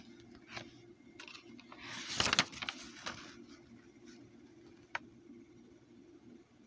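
A paper page being turned by hand: a short rustle of paper about two seconds in, with a few light clicks and handling noises around it.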